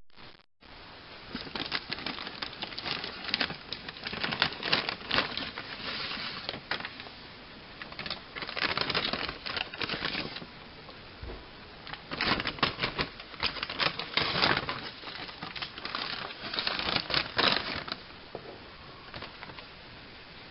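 Packaging being handled: irregular bursts of crinkling and clicking in clusters, with short quieter pauses between them.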